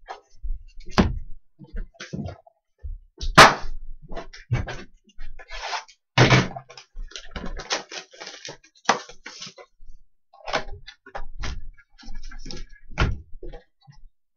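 Sealed trading-card boxes and packs being handled: irregular cardboard knocks and thunks with rustling between them, the loudest knocks about three and a half and six seconds in.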